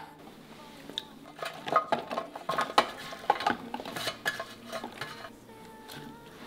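Chopped onion and garlic cloves tipped from a baking dish and dropped by hand into a plastic chopper cup: irregular clatters and knocks, busiest through the middle.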